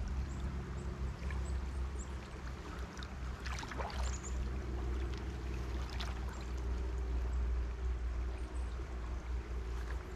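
Shallow, fast-flowing trout stream running and rippling steadily, with a strong low rumble underneath.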